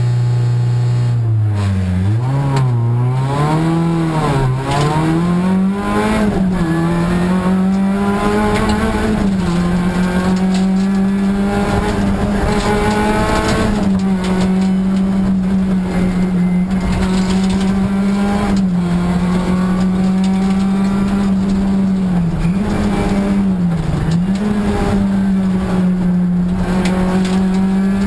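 Rally car engine heard from inside the cabin, held at steady revs at the start line and then launching about a second and a half in, climbing through quick upshifts. After that it runs hard at high revs, with a few brief dips where the driver lifts off or shifts.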